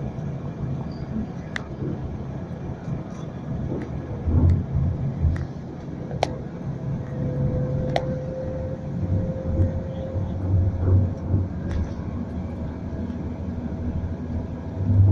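Road and engine noise inside a moving vehicle: a steady low rumble and hum, with a few sharp rattles or clicks from the cabin and a steady whine for a few seconds in the middle.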